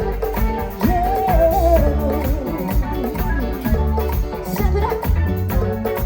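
Live Latin pop band playing with a steady beat and a shaker. A wavering melodic line comes in about a second in.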